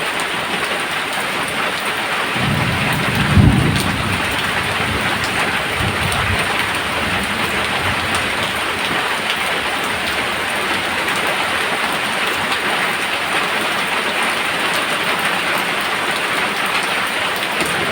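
Steady heavy rain falling, with a roll of thunder that builds about two seconds in and peaks a second later, followed by a fainter rumble a few seconds after.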